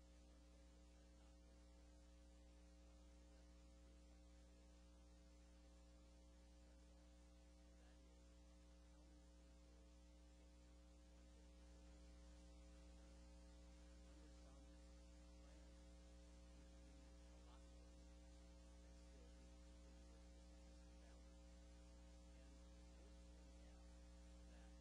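Near silence with a faint, steady electrical mains hum, rising slightly in level about halfway through.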